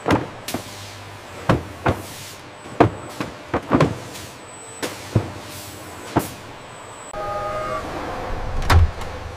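Automated packaging-line machinery: a string of about a dozen sharp mechanical clacks and swishes at irregular intervals. About seven seconds in, a louder steady hum with held tones sets in.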